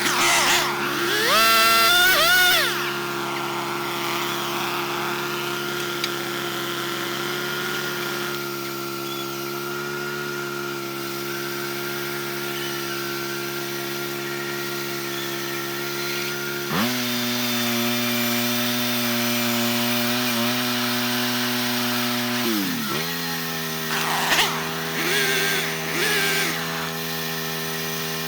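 Sawmill running steadily while cutting cedar, with brief rising whines near the start and again about 24 seconds in; its engine pitch steps up about 17 seconds in and drops back about 23 seconds in.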